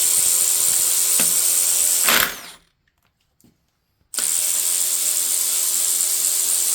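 Power ratchet running under trigger, spinning 15 mm fasteners off studs during an engine teardown: a steady whirring with a strong hiss that winds down and stops about two seconds in, then starts again about two seconds later.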